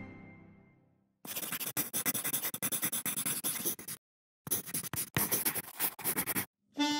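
Scratchy brush strokes on paper in quick runs, with a short pause about four seconds in, as lettering is drawn. Before the strokes begin, music fades out over the first second, and new music starts right at the end.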